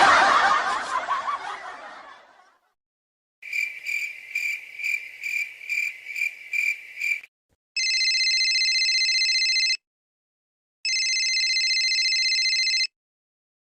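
A string of separate sound effects. First, a loud noisy crash-like sound fades out over about two seconds. Then comes a high electronic beeping pulsing about three times a second for about four seconds. Last are two steady two-second electronic ringing tones a second apart.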